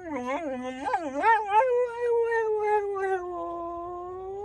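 Dog howling: a second and a half of quick rising-and-falling whines, then one long howl held on a single pitch that slowly sinks and turns up again near the end.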